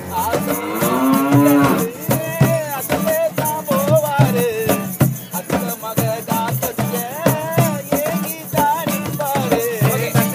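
A male voice singing a folk song, opening on a long sliding note, over hand drums and a shaker keeping a steady beat, with acoustic guitars strumming.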